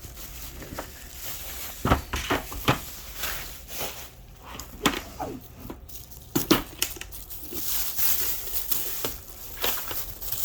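Plastic packaging and bubble wrap crinkling and tearing as a package is unwrapped by hand, with scattered sharp clicks and rustles at irregular intervals.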